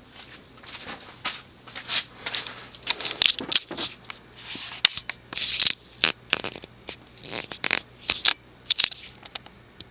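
Irregular rustling and scraping noises with a few sharp clicks, over a faint steady low hum.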